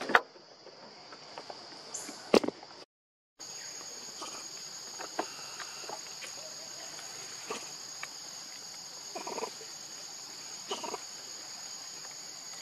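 Steady high-pitched chorus of insects in the surrounding vegetation. Two sharp knocks come in the first few seconds, then faint scattered taps; the sound briefly cuts out about three seconds in.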